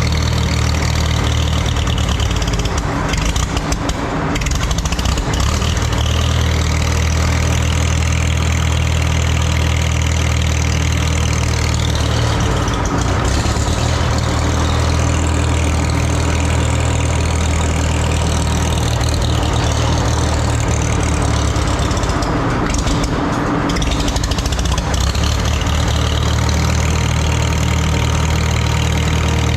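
Antique tractor engine running steadily at idle, its note wavering briefly a few times.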